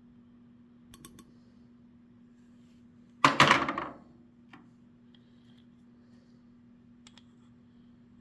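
A short clatter of several quick hard clicks, under a second long, about three seconds in, with single faint clicks before and after it, over a steady low hum.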